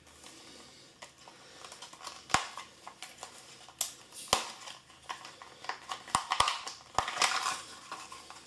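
Handling noise of a plastic RC helicopter and its packing pieces: rustling with several sharp plastic clicks and knocks as it is picked up and turned over in the hands.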